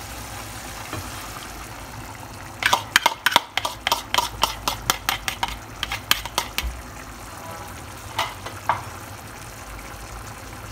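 Metal spoon scraping and tapping against a bowl in a quick run of clicks as beaten eggs are scraped out into the pot, with two more taps a little later. Underneath, a pot of tomato sauce simmering with a steady low sizzle.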